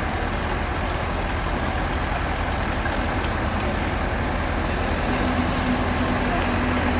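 Heavy construction machine engine running steadily with a low rumble; about five seconds in, a steady hum joins it.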